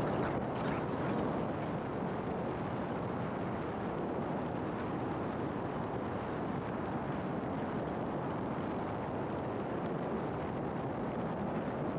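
Steady road noise of a car driving: an even rumble and rush of tyres and air, with no distinct events.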